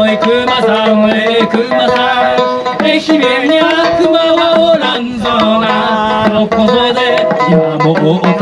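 Live Okinawan-style folk song: a handmade sanshin strummed over hand-drum percussion, with a man singing the lyrics.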